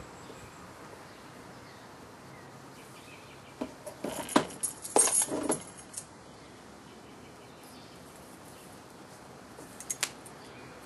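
A bunch of keys jangling and clicking as a key is worked against the shrink-wrap of a boxed iPad to slit it open, in a flurry of short rattles about four to six seconds in and a brief few more near the end.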